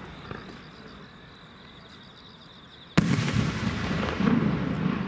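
A firework shell bursts with one sharp bang about three seconds in, followed by a couple of seconds of rumbling and crackling. Before the bang there is only a faint steady high tone.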